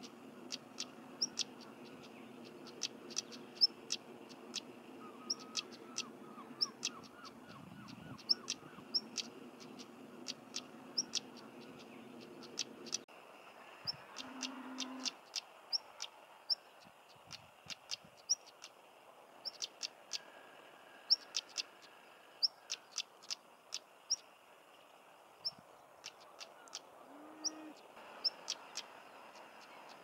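Male European stonechat calling over and over: short high whistles mixed with sharp clicking 'tack' notes, the call that sounds like two stones knocked together.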